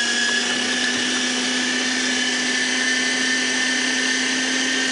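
Electric meat grinder running steadily with a constant motor whine, mincing vegetables for chutney as they are pushed down its feed tube.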